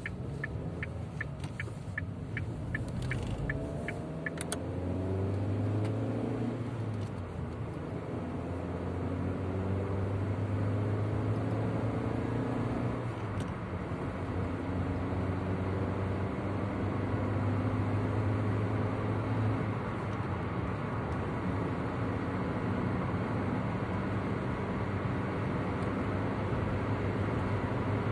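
Car engine and tyre noise heard from inside the cabin. The engine note rises as the car accelerates over the first five or six seconds, then settles into a steady low drone at cruising speed. A quick regular ticking, about three a second, runs over the first four seconds or so.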